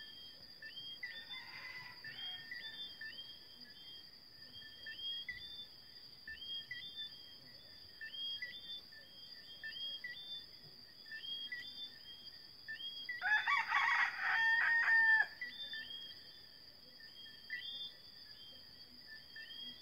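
Rooster crowing at night: one loud crow about two-thirds of the way through, lasting about two seconds, and a fainter, more distant crow near the start. Behind it runs a night chorus of repeated short rising chirps over a steady high trill.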